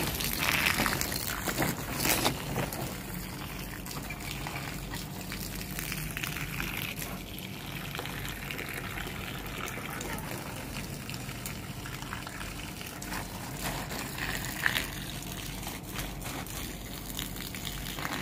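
Water from a garden hose spraying onto potted plants and soil, a steady hiss and splash. There is a brief louder noise about two seconds in.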